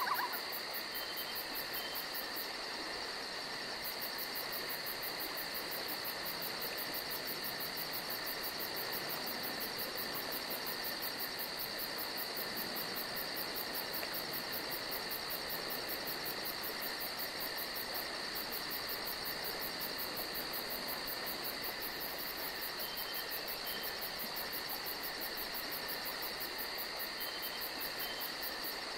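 Crickets trilling steadily at night, a constant high-pitched drone with a faster, very high pulsing trill above it. Under it runs the hiss of a trail camera's small microphone.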